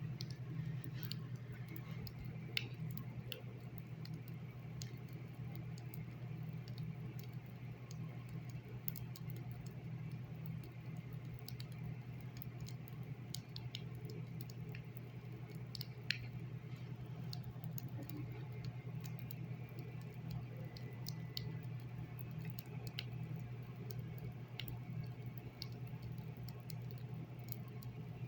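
Faint, irregular clicking and ticking over a steady low hum: an unexplained night-time noise.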